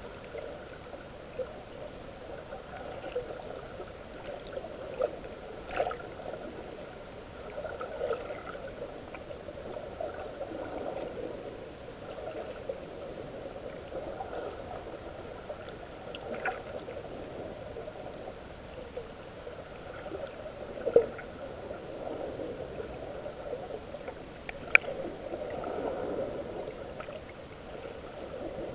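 Muffled underwater water noise heard through a GoPro's waterproof housing: a steady low hiss and churn, with a few sharp clicks scattered through, the two loudest in the second half.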